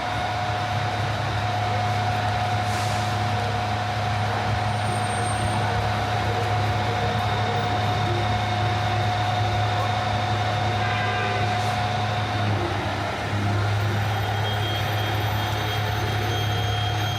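Steady city street traffic noise: a low engine hum with a thin steady whine over a hiss, the hum and whine shifting about two-thirds of the way through.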